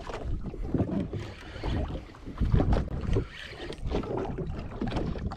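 Wind buffeting the microphone aboard a small fishing boat, an uneven low rumble that swells and drops.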